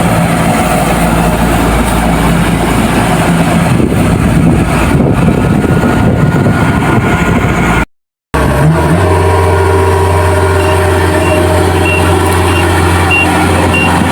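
Kubota DC-70 Plus rice combine harvester running at working speed, a loud steady mechanical din. It cuts out for a moment about 8 s in; after that the engine holds a steadier low hum, and a few seconds later a series of short, evenly spaced high beeps starts.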